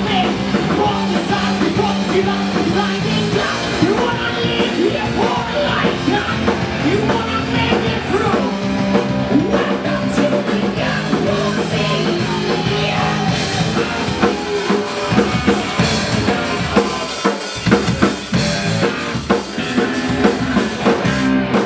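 Live rock band playing: drum kit, electric bass and electric guitar with a singer on vocals.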